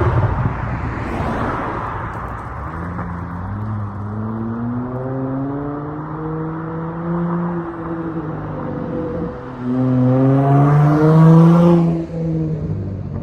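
Dodge Charger SXT's V6 exhaust through Flowmaster Outlaw mufflers, the engine revving. The pitch climbs and holds, dips about nine seconds in, then climbs again louder before dropping off near the end.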